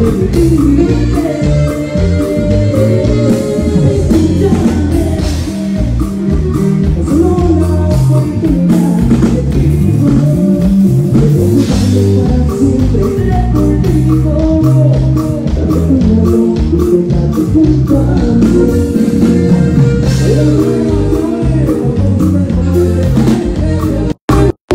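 Live norteño band music: a man singing over a strummed bajo sexto, bass and drum kit. The sound cuts out completely for a split second near the end.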